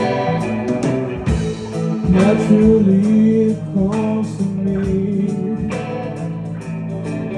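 A live three-piece hard rock band, seven-string electric guitar, six-string bass and drums, playing the instrumental part of a song, with drum hits about every second.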